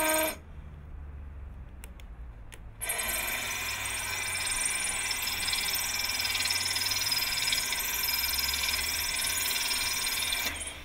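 Makita cordless drill/driver turning an Irwin diamond drill bit into a water-cooled ceramic tile. It runs briefly, stops for a couple of seconds with a few clicks, then runs steadily for about seven and a half seconds as the bit grinds through the tile, stopping near the end.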